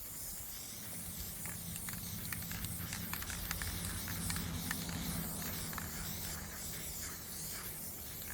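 Aerosol spray-paint can spraying with a steady hiss, with scattered light clicks.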